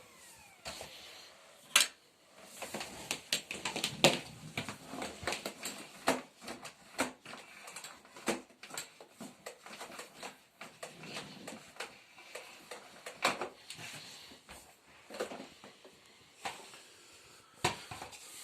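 Irregular clicks, taps and knocks of the Bosch BGC1UB130 bagless vacuum cleaner's hard parts being handled after it has been switched off, with a few louder knocks along the way.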